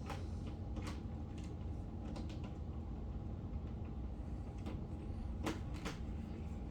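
Plastic toy farm machinery being handled and moved: scattered light clicks and knocks, about seven in all, two close together near the end, over a steady low hum.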